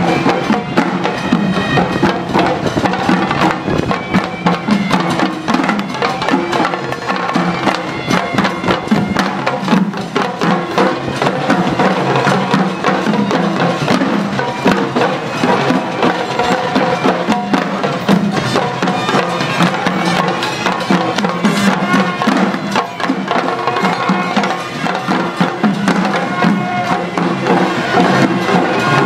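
Traditional Sri Lankan procession music: a shrill horanewa reed pipe playing a melody over dense, continuous hand drumming.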